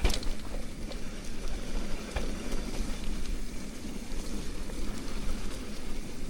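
Mountain bike riding down a damp trail: a steady rush of wind on the microphone with the tyres rolling over dirt and the bike rattling, and sharp knocks as it hits bumps, one right at the start and another about two seconds in.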